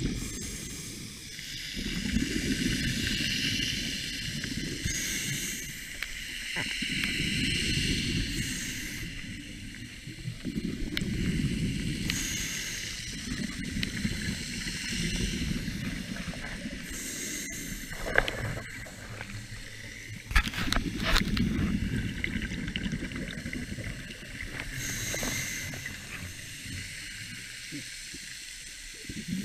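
Scuba diver breathing through a regulator underwater: short hissing inhales alternate with longer bubbling exhales, a cycle about every four to five seconds. A few sharp clicks come about two-thirds of the way through.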